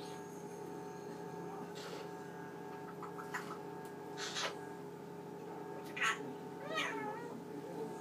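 Male Eclectus parrot giving a string of short calls and mimicked sounds, the loudest about six seconds in, with a wavering call just after. A refrigerator hums steadily underneath.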